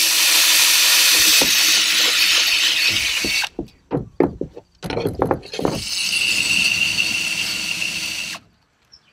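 Cordless drill boring through a white plastic starboard (HDPE) plate. It runs steadily for about three and a half seconds, then comes a spell of sharp knocks and clatters. A second drilling run with a steady high whine stops abruptly near the end.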